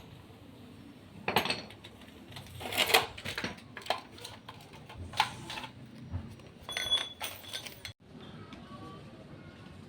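A series of irregular knocks and metallic clinks from hard objects being handled, with a short ringing tone near the end.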